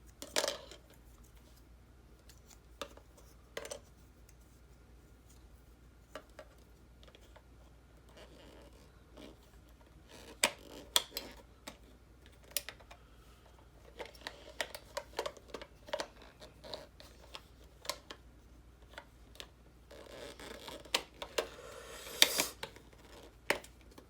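Small plastic clicks, taps and scrapes of hands working the back of an LED calendar, fitting its battery compartment cover while holding the batteries in place. The clicks are scattered and sparse at first, coming thicker in the second half, with a rustling scrape near the end.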